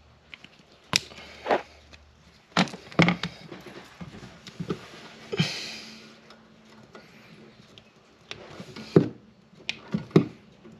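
Hand tools working electrical wire: a wire stripper on insulation, then pliers gripping and twisting wires inside a metal outlet box. Scattered sharp clicks and snaps, with a short rasp about halfway through.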